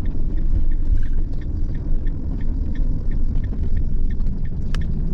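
Camper van on the move: a steady low rumble of engine and road noise, with faint light clicks and rattles over it.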